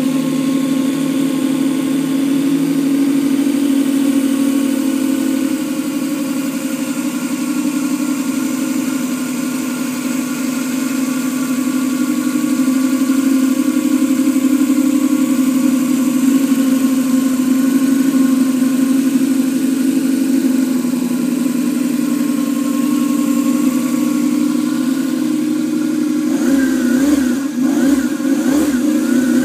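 48 cc scale-model V8 engine with electronic fuel injection running steadily on a test stand, its exhaust passing through twin silencers. Near the end the pitch jumps quickly up and down a few times.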